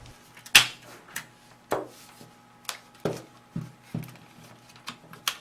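Irregular sharp clicks and knocks, about nine in all, as a body shroud is handled and fitted onto a Tippmann A5 paintball marker.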